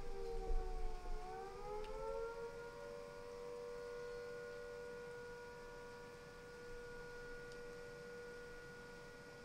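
Fire station's civil defense siren sounding faintly with two notes together: its pitch dips to a low point about a second in, rises back and then holds steady. The siren has stayed on since a lightning strike, which the recordist suspects may have hit it. A low rumble, the tail of thunder, fades during the first second.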